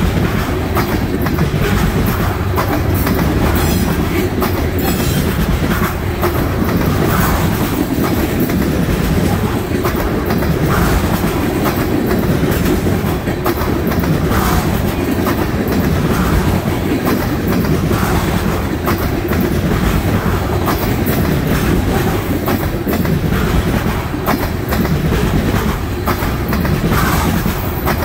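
Loaded trash cars of a freight train rolling past close by: a steady, loud rolling noise of steel wheels on rail, with frequent clicks.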